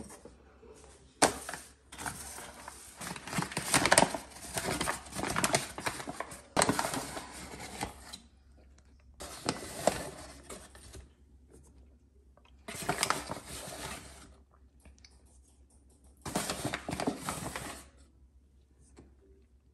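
Flour bags crinkling and rustling in four bouts as a hand scoops flour out of them with a measuring cup.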